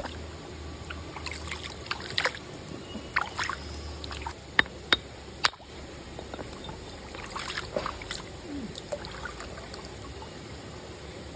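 Shallow river water trickling steadily, with a scattering of sharp clicks, the loudest a few quick ones about halfway through.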